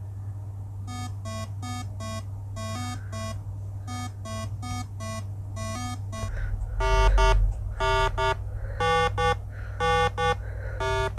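Short electronic beeps at a few different pitches, about two to three a second, over a steady low hum. After about six seconds they change to louder beeps in pairs.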